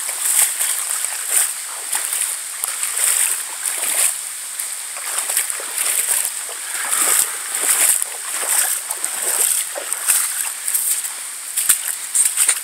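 Footsteps splashing through shallow floodwater and waterlogged grass, irregular surges about once a second, over a steady high hiss.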